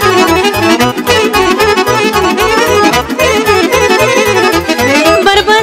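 Romanian folk dance music in an instrumental break between sung verses: an ornamented, quickly moving melody over a fast, steady bass beat.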